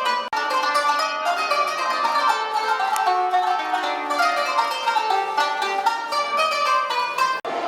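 Music played on plucked string instruments, quick runs of notes. It drops out for an instant twice, about a third of a second in and near the end.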